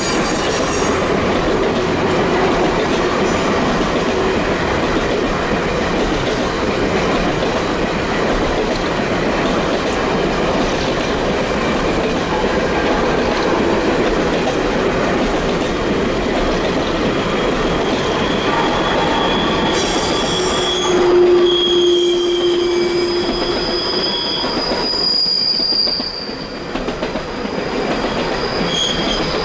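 Long Canadian Pacific freight train's cars rolling past with a steady rumble, their wheel flanges squealing in several sustained high tones, the flange squeal typical of a sharp curve. The squeal is strongest and loudest a little over two-thirds of the way through, then the overall level eases slightly.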